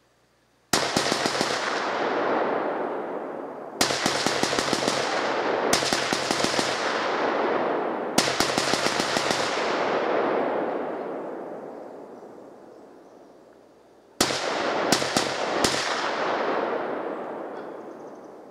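Rifle gunfire: four rapid strings of semi-automatic shots, then about four single shots spaced well under a second apart near the end. Each string rolls away in a long echo.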